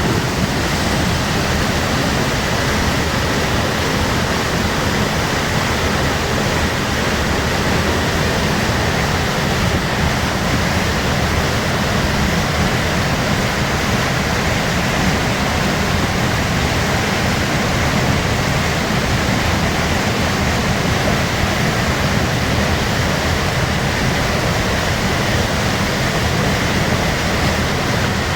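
A loud, steady rushing noise with no break and no change.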